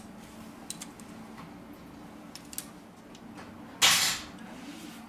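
Small scattered clicks and taps of a plastic pry tool and gloved fingers handling a flex cable and the inside of a smartphone, over a faint steady hum. A short, loud rush of noise comes near the end.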